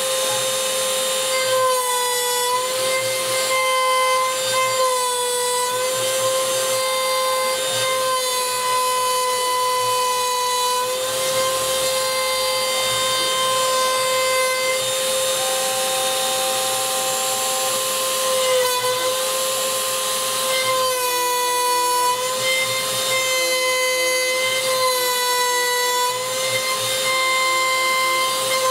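Router spindle on a home-built CNC machine running with a steady high whine as its V-bit carves letters into a sign, the pitch dipping briefly every second or two.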